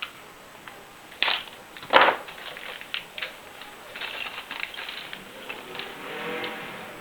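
Clicks and knocks of hands handling parts or tools: two sharp knocks about a second apart, the second the loudest, then lighter scattered clicks and rattling.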